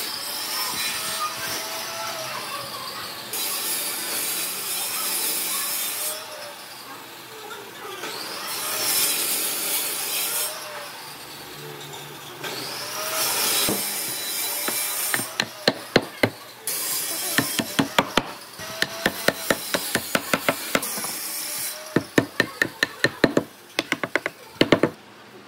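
Rubbing, rasping noise in swells a few seconds apart, then from about halfway runs of quick, sharp knocks as a wooden block hammers a glued joint of a reclaimed railway-sleeper wood frame home.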